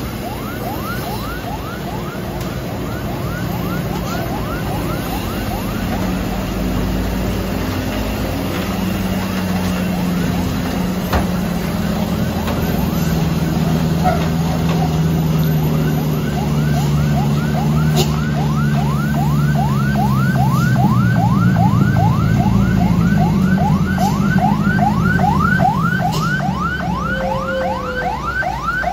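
Heavy truck's diesel engine labouring slowly round a steep hairpin, with a repeated rising chirp, about two or three a second, that grows louder toward the end.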